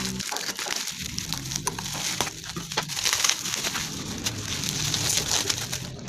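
Packaging of Sukkari dates being handled and opened, with dense irregular crinkling and crackling.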